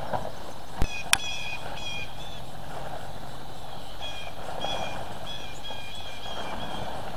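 Plastic greenhouse sheeting rustling as it is pulled over the metal hoop frame, with two sharp knocks about a second in. A string of short high-pitched notes comes and goes over the rest.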